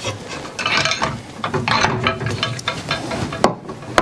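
Adjustable furniture foot being handled and fitted into the underside of a plywood rack: irregular clicking, scraping and rattling, with a sharp knock near the end.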